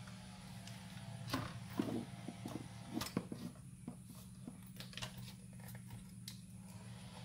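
Short plastic clicks and light knocks as a Blitzer Beetle RC buggy's plastic chassis and parts are handled and turned over on a workbench, most of them in the first half, over a steady low hum.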